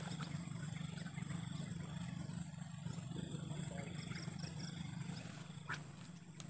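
Steady low drone under a thin high-pitched buzz, with four short quick chirps about four seconds in and a few faint clicks.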